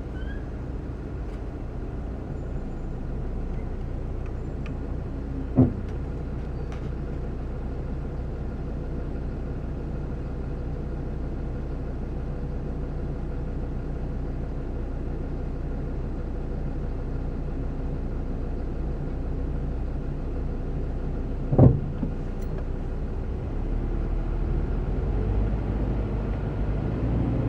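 Scion FR-S's flat-four engine idling, heard from inside the cabin while stopped, with two short sharp sounds about 6 s in and about 22 s in. The second comes as the brake is eased off, and the engine and road rumble then rise as the car pulls away.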